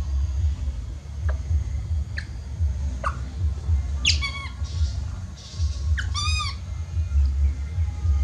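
Baby monkey crying: a few short high squeaks, then two longer high cries that rise and fall in pitch, about four and six seconds in. These are the distress cries of an infant missing its mother. A steady low rumble runs underneath.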